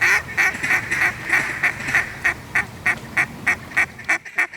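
Mallard duck call blown in a long, evenly paced string of quacks, about three a second, calling to ducks overhead to get them to drop into the decoys.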